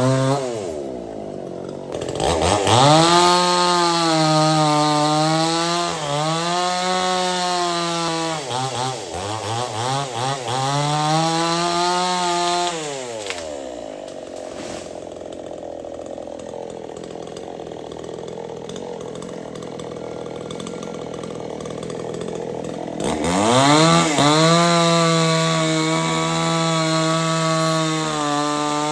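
Chainsaw revving to high speed, its pitch dipping and recovering a few times. It drops back to a quieter idle about halfway through, then revs up again near the end.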